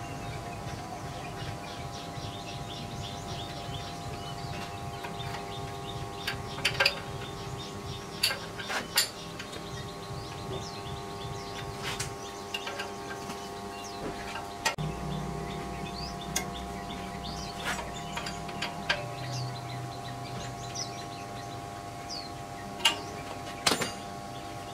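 Metal hand tools and fittings clink sharply now and then, about eight times, while work goes on at the fuel line fittings of a single-cylinder diesel engine. Several steady high tones hold underneath throughout, and birds chirp faintly.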